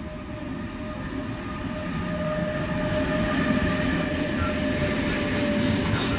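Renfe class 253 electric locomotive (a Bombardier TRAXX) hauling a freight train past, growing louder as it approaches and goes by, with a steady whine that stops near the end.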